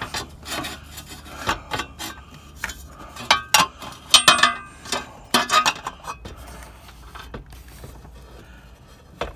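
Metal parts of an engine's cooling fan and fan clutch knocking, clinking and scraping against one another and the engine as they are handled in a tight space. The irregular clatter is busiest in the first six seconds and thins out toward the end.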